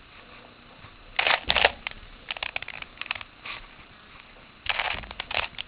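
Rubik's Cube being turned by hand, its plastic layers clicking and rasping in three short bursts. The cube has a little silicone lubricant in it and is not yet broken in.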